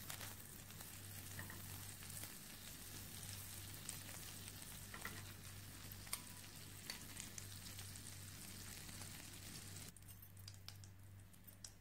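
Butter melting and sizzling in a hot nonstick frying pan: a faint, steady hiss with small scattered crackles, turning quieter about ten seconds in.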